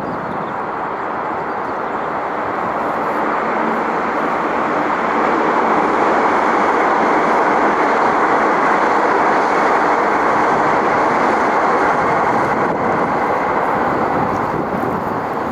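A train passing: a steady rushing noise that builds to its loudest about halfway through, then slowly fades.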